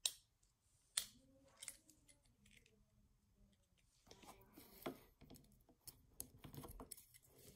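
Quiet handling of a plastic Beyblade top, World Spriggan, as its parts are worked to switch it to left spin: two sharp clicks in the first second, then soft scattered clicks and fiddling from about four seconds in.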